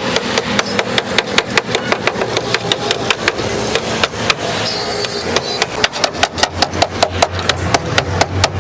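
Rapid hammering on car-body sheet metal, about five strikes a second, over a steady machine hum.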